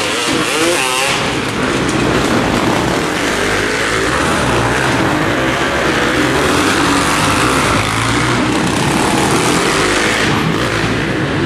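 Several motocross dirt bikes racing on an indoor arena track, their engines revving and overlapping continuously. One engine rises and falls sharply in pitch in the first second or so.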